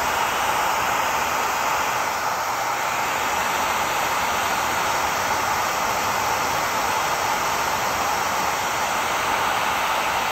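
Handheld hot-air blower running steadily, a constant rushing hiss with no change in speed, held close to the PVC vinyl to heat and loosen a glued spot.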